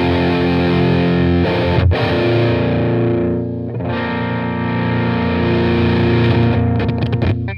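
Squier Strat electric guitar with a Seymour Duncan Invader bridge humbucker, played through a valve amp with EL34 valves: distorted chords ringing out, with a brief break about two seconds in and a fresh chord struck about four seconds in, stopping sharply at the end.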